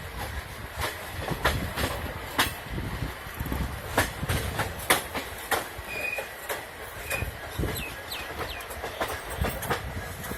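Train moving on the track: a low rumble with irregular clacks and knocks from the wheels, and a few short high-pitched squeals.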